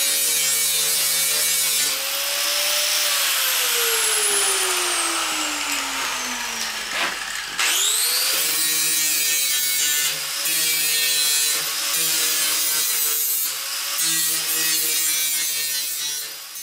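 Power saw cutting through a fiberglass trunk lid's lip, with a steady motor whine over the cutting noise. The motor's pitch sinks slowly for several seconds, then rises sharply again about seven and a half seconds in, and it keeps cutting with a few brief pauses.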